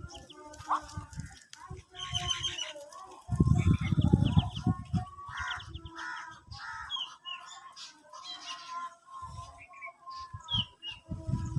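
Birds chirping and calling in many short, high notes, some quick rising whistles among them. A loud, low rumbling noise runs from about three to five seconds in.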